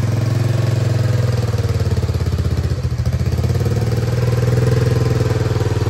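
Honda Big Red ATC250ES three-wheeler's single-cylinder four-stroke engine running at low throttle with a steady rapid putter as the trike is manoeuvred slowly. It swells a little about four and a half seconds in.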